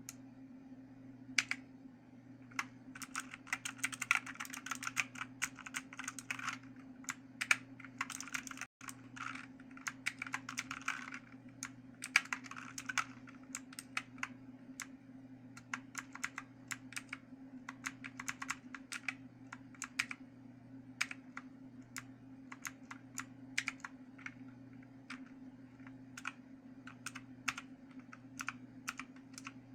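Typing on a Motospeed CK888 mechanical keyboard: fast runs of key clicks in the first half, then slower, spaced keystrokes, over a steady low hum.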